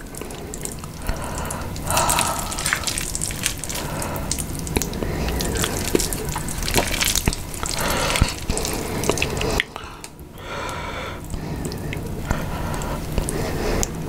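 Close-miked, wet eating sounds of sauce-coated stir-fried instant noodles, chewed and slurped, with many small clicks. There is a brief lull about ten seconds in.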